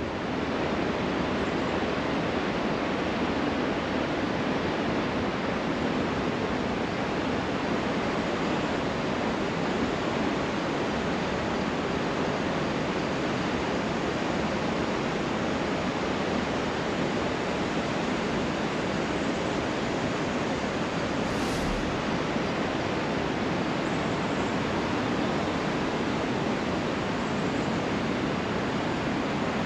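Steady rush of Niagara's falling and rushing water, an even, unbroken noise, with one brief click about two-thirds of the way through.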